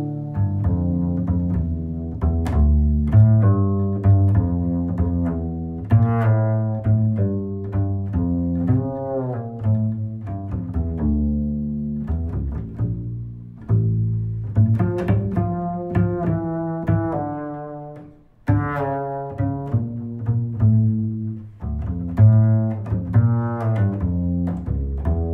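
Background music of low string instruments playing a melody of short, quickly changing notes, with a brief pause about eighteen seconds in.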